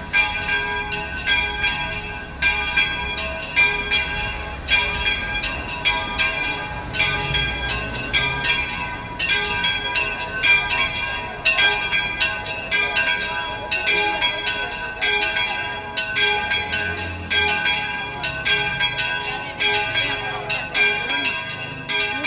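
Two church bells hung in a bell gable, ringing a rapid peal. Strikes come about two to three a second, and each bell's tone rings on under the next strike.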